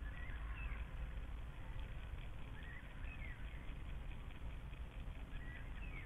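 A songbird singing short warbled phrases, three times, over a steady low rumble.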